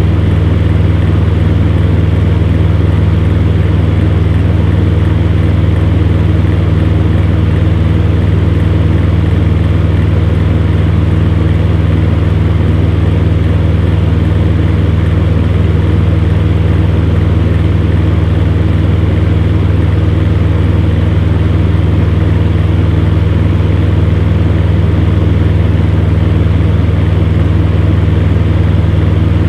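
Fan heater running steadily: a constant low hum under an even whir of moving air.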